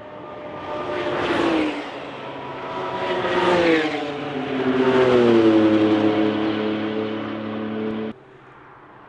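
Cars passing one after another at speed under acceleration, three engine notes each dropping in pitch as they go by. The sound cuts off abruptly about eight seconds in.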